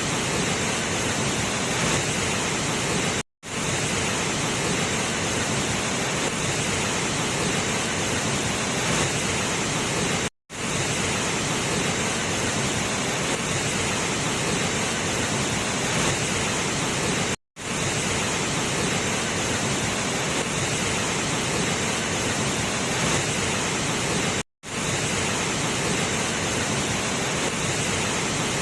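Waterfall rushing in a steady, loud roar of falling water. It drops out for an instant four times, about every seven seconds.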